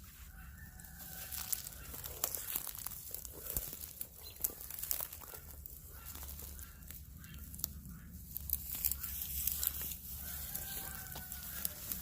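Farmyard chickens clucking, with faint drawn-out calls near the start and again near the end. Irregular crunching and crackling noises run throughout.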